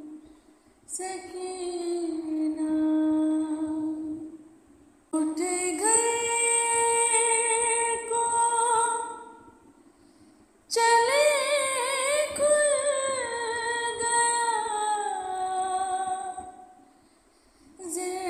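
A solo female voice singing a slow, mournful Urdu noha in long held phrases, with a short breath-pause between each. The middle phrases waver with ornamented turns before falling away.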